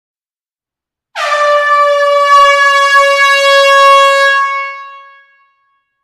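An air horn sounding one long, loud, steady blast in an enclosed hall. It starts about a second in and fades away over the last second or so.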